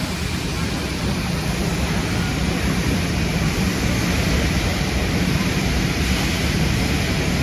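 Factory machinery running with a steady rushing noise and a low rumble, unchanging throughout.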